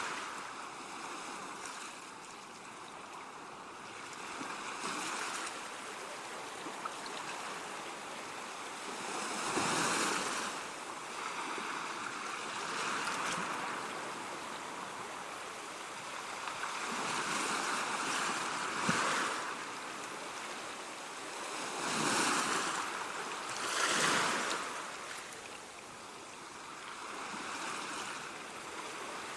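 Ocean waves washing in, a steady rush of surf that swells and eases, with the loudest breakers cresting about ten seconds in and again several times in the second half.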